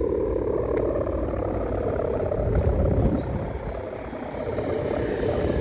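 A propeller motor droning steadily, its pitch creeping slightly upward. Strong wind buffets the microphone in gusts and is loudest about three seconds in.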